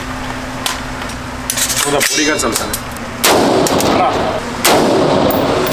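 Gunfire at a shooting range: a series of sharp gunshots, the two loudest about three seconds in and near the end, each followed by a ringing echo.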